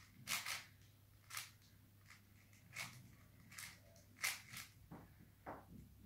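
5x5 Rubik's cube being turned by hand: short plastic clicks and rasps as its layers are twisted, one every half second to a second at uneven intervals.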